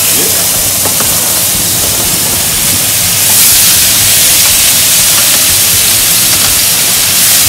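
Chopped vegetables sizzling in a hot frying pan of peanut oil as they are slid in from a plate to sear: a loud, steady frying hiss that gets louder about three seconds in as more of them land in the pan.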